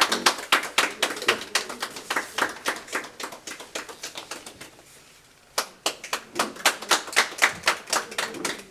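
A few people clapping hands, separate quick claps several a second. The clapping fades out about four seconds in, stops briefly, then starts again at full strength.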